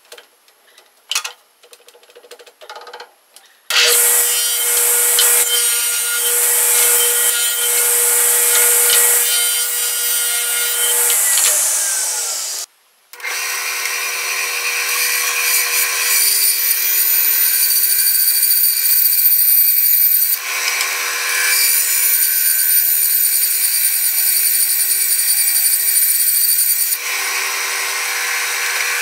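A few light knocks of wood being handled. About four seconds in, a power saw starts cutting wood, running steadily with a held motor whine. It breaks off abruptly about halfway through and is cutting again a moment later.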